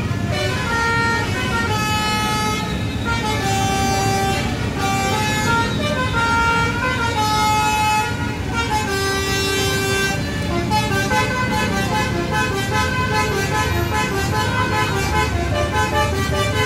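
Bus telolet horn, the multi-tone 'basuri' type, playing a stepped melody of held notes over engine and crowd noise. From about ten seconds in it switches to quicker, choppier notes.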